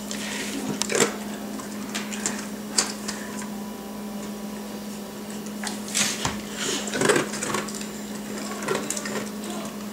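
Dry dog kibble clicking against a stainless steel bowl as a small hand digs through it, and a bulldog crunching the pieces it is hand-fed, as scattered sharp clicks and crunches over a steady low hum.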